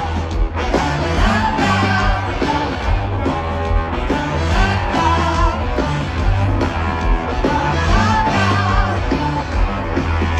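Live rock band playing through a festival PA, heard from the crowd: drums on a steady beat, bass and electric guitar, with singing over them.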